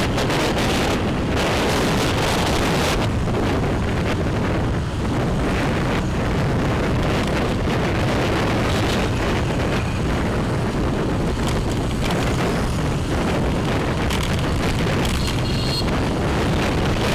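Steady wind rush on the microphone of a camera riding on a moving motorbike, with vehicle noise beneath.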